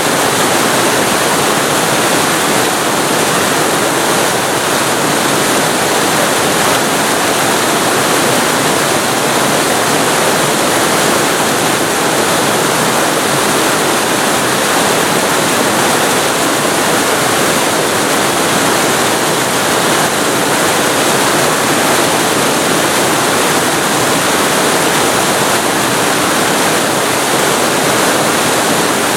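Waterfall recorded very close to the falling water: a loud, steady, unbroken rush of water.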